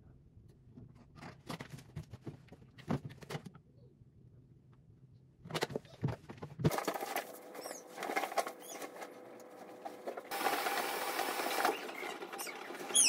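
Laundry being handled: small clicks and knocks of plastic detergent and softener bottles and caps, then fabric rustling, with a loud rush of cloth about ten seconds in as bedding is tossed and shaken.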